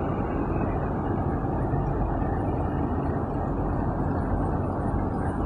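A convoy of road sweeper trucks driving past on the road, a steady low rumble of truck engines and tyre noise.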